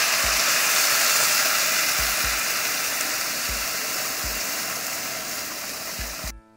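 Water poured into a hot pot of fried chicken and pequi, hissing and sizzling as it hits the hot oil to start the broth. The steady hiss slowly fades, with a few dull low thumps, and cuts off suddenly near the end.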